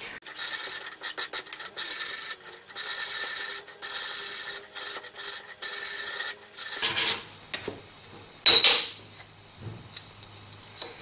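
Sanding block rubbed back and forth over the edge of a thin aluminium nameplate, knocking off the burrs: a run of short scraping strokes for about seven seconds. One brief, louder sound comes a little over a second after the strokes stop.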